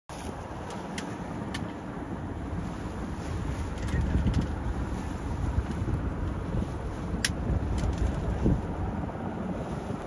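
Steady low noise, a little louder about four seconds in, with a few faint sharp clicks.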